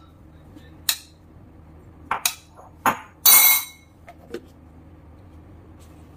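A few sharp clinks and knocks against a steel mixer-grinder jar as a spoon scrapes plum pieces in and the plastic lid is put on. A brief, brighter scraping clatter a little over three seconds in is the loudest sound.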